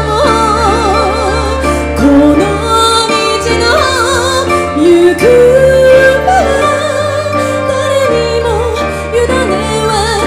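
Live ensemble music: a shakuhachi plays a lead melody with wide vibrato and sliding notes over sustained piano chords and koto.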